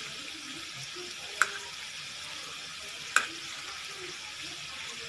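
Samosas deep-frying in oil and ghee in a kadhai, a steady sizzle with two sharp clicks, about a second and a half in and again past the middle.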